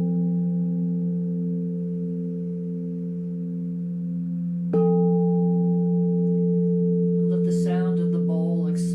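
Singing bowls ringing in a steady sustained hum of several layered tones. They are struck again about five seconds in and swell back up. A voice sounds over the ringing near the end.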